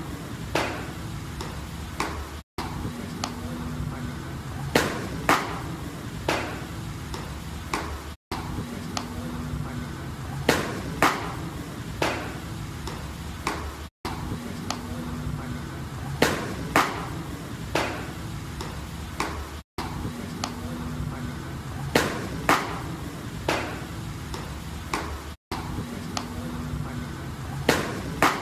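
Baseballs thrown hard popping into catcher's mitts: sharp loud pops, two or three close together, with a low murmur between. The same short run of pops repeats about every six seconds, cut by a brief dropout each time.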